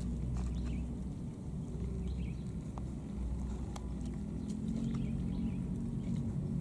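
Outdoor ambience by the water: a steady low rumble with a few faint clicks and rustles.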